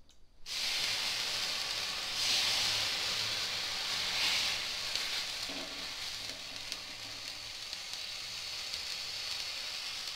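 Water sizzling and hissing on a hot iron tawa as it is sprinkled and spread over the griddle. The hiss starts suddenly, swells a couple of times as more water goes on, then slowly dies down as the water boils off.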